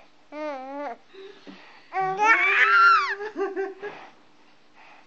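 A young child's high-pitched voice: a short wavering call, then a longer squeal that rises and falls, and a few short sounds after it, somewhere between laughing and fussing.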